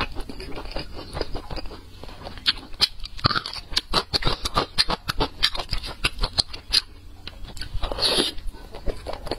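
Close-miked chewing of braised pork belly: many quick mouth clicks, with a louder bite about eight seconds in as a fresh piece goes into the mouth.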